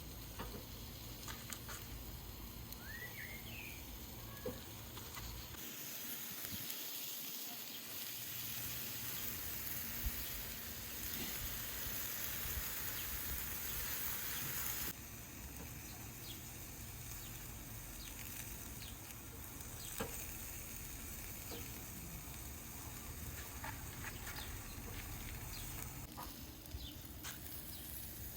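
Beef rib kebabs sizzling on a mesh grill grate over hot charcoal: a steady hiss with a few faint crackles and pops. The hiss turns brighter for several seconds in the middle.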